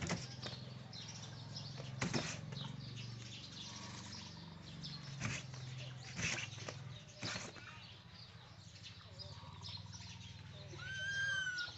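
Knocks and rattles of a woven bamboo basket as baby monkeys move inside it and clamber on it, coming every second or two. Near the end a baby monkey gives one short, high squeal that rises and then falls.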